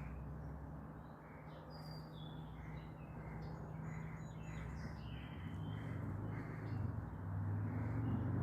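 Birds calling, a string of short high calls, over a steady low hum and outdoor noise. A low rumble builds in the second half and becomes the loudest sound.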